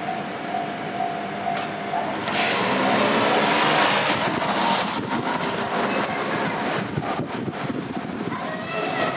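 A train passing over a level crossing. The crossing's warning bell rings in a pulsed steady tone at first, and then the loud rush of the train takes over from about two seconds in. Several seconds of sharp wheel clacks over rail joints follow, and a rising whine comes in near the end.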